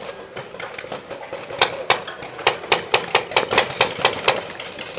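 Paintball fire: a fast, slightly uneven string of about a dozen sharp pops, starting about a second and a half in and lasting under three seconds.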